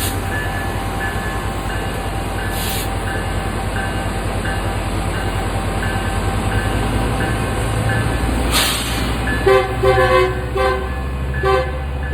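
Metrolink locomotive 924 running with a steady low rumble and a high ding repeating about every two-thirds of a second. From about nine and a half seconds in, its horn sounds a series of short honks, several tones together.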